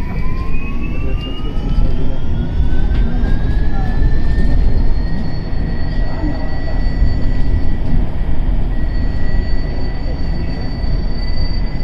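Bus speeding up with a high, airplane-like whine that climbs in pitch over the first few seconds and then holds steady, over a heavy low rumble.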